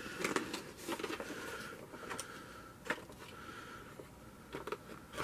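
Thin clear plastic blister tray crinkling and clicking as it is handled and lifted out of a foam-lined box: faint, scattered clicks and rustles.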